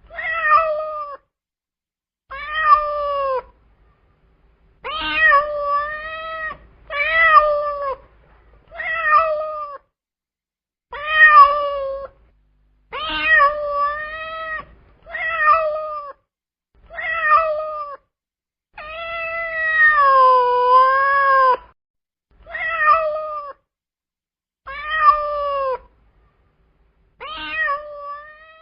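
Domestic cat meowing over and over, about a dozen separate meows of roughly a second each with short pauses between, and one longer, wavering meow about two-thirds of the way through.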